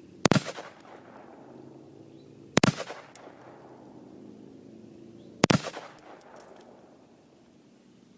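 Three single gunshots from a shoulder-fired gun, spaced about two and a half to three seconds apart, each sharp crack followed by a short ringing echo.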